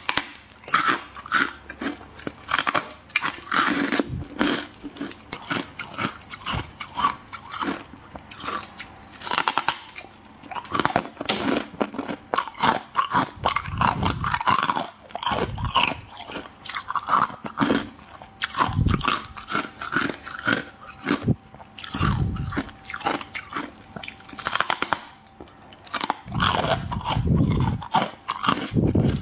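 Freezer frost being bitten and chewed close to the microphone: a run of crisp, crackly crunches with short pauses and a few deeper crunches.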